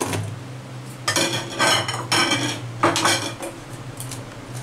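Stainless steel bowl clinking and rattling as boiled potato pieces are moved around in it by hand: about five short clattering knocks with a metallic ring, over a steady low hum.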